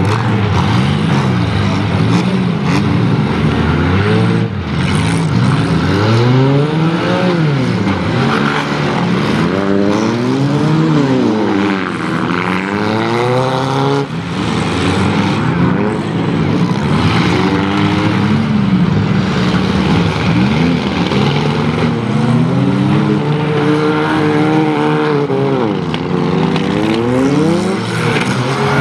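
Engines of several four-cylinder compact demolition-derby cars revving up and down again and again as they drive at one another, with a few bangs of cars colliding.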